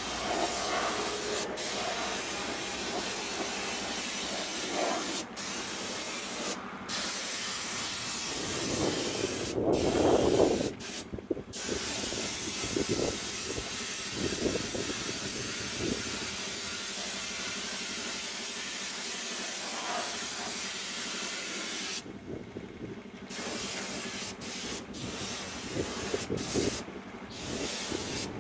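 Compressed-air paint spray gun hissing steadily as it sprays paint onto a tractor body, breaking off briefly several times and for about a second near the end. A brief louder rumble comes about nine to ten seconds in.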